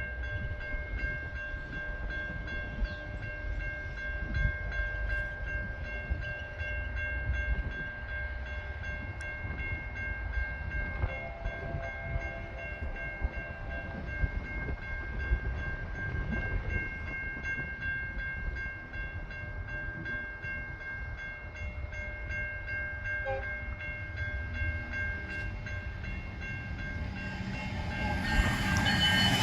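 Level crossing warning bells ringing steadily over a low rumble while the Loram rail grinder train approaches. The train grows louder over the last couple of seconds.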